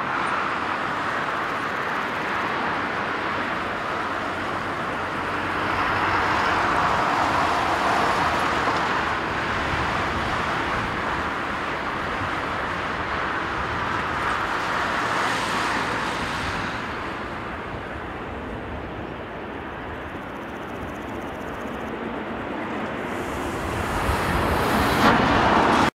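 Airbus A350-900's Rolls-Royce Trent XWB jet engines at takeoff power as the airliner lifts off and climbs away, a steady noise heard from a distance. It eases somewhat past the middle and grows louder again near the end.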